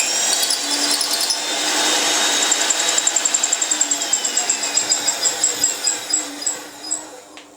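Titan PMD 16 magnetic-base drill motor running with a high whine, then winding down after being switched off: a pulsing that slows and falls in pitch until it stops near the end.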